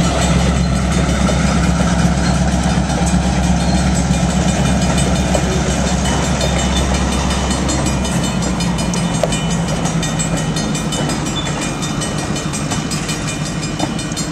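Covered grain hopper cars rolling past at low speed, their wheels clicking over the rails. A low steady rumble under it fades away about eight seconds in, leaving the wheel clicks.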